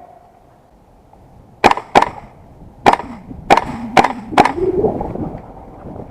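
Six single shots from an M4 gas blowback airsoft rifle, each a sharp crack of the gas-driven bolt cycling, fired one by one at uneven intervals over about three seconds.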